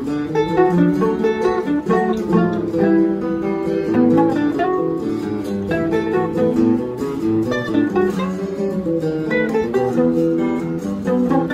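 Bandolim (Brazilian mandolin) and seven-string nylon-string guitar playing together: a quick run of plucked melody notes over the guitar's accompaniment.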